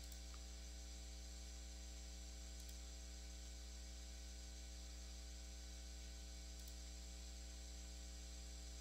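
Steady electrical mains hum with a faint hiss, and nothing else standing out.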